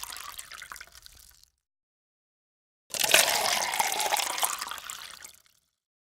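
Water pouring into a glass: the tail of one pour fades out about a second and a half in, then after a short gap a second pour starts abruptly and tails off before the end.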